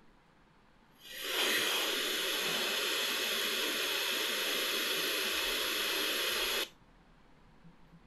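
Blaupunkt BT-01 portable Bluetooth speaker's FM radio playing loud, even static hiss: untuned FM noise, with no station tuned in. The hiss comes in about a second in and cuts off suddenly near the end.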